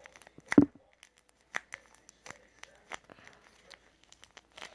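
Plastic packaging crinkling and rustling in the hands as it is handled and opened, in scattered small crackles, with one louder crackle about half a second in.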